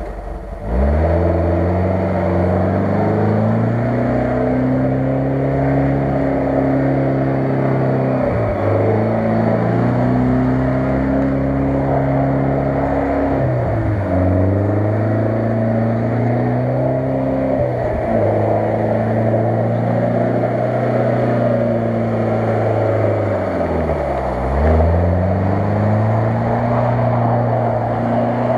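UAZ-469 engine running under throttle as the 4x4 spins circles on ice; its pitch holds for several seconds, then drops sharply and climbs back, four times.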